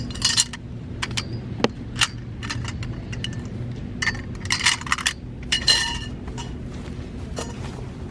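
Small hard items clinking and knocking together as they are handled, in quick clusters with short ringing, the busiest stretch about four to six seconds in, over a steady low hum.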